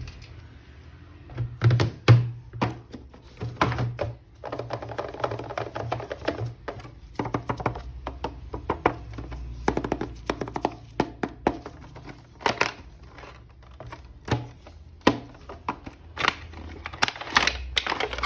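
Irregular plastic clicks, taps and knocks from handling a toy action figure and its packaging, some in quick clattery runs.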